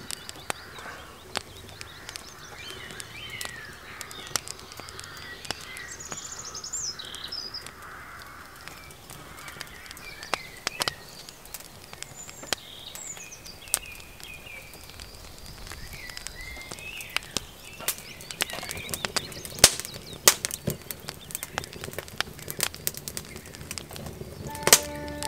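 Wood fire crackling, with sharp pops and snaps that come more often in the second half, while songbirds chirp in the background.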